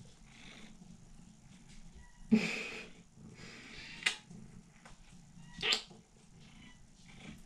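Young domestic cat purring close to the microphone. The purring is broken by a loud short noise a little over two seconds in, a sharp click about four seconds in, and another short sound near six seconds.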